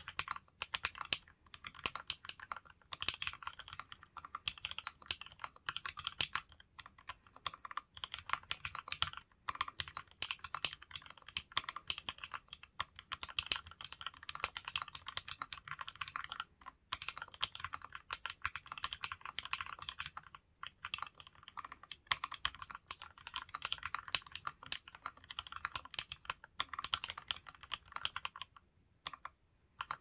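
Fast, continuous typing on a Candybar Premium R2 mechanical keyboard with lubed and filmed Banana Splits linear switches, lubed stabilizers and shelf-liner dampening, set straight on a bare wooden desk with no deskmat. A steady stream of keystrokes, broken by a couple of brief gaps around the middle and a longer pause near the end.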